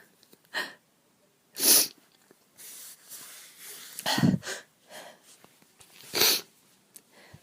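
A woman sneezing three times, a couple of seconds apart, with breaths between the sneezes; the sneezes are set off by dust.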